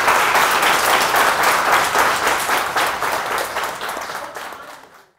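Audience applauding: many people clapping, which fades away over the last two seconds.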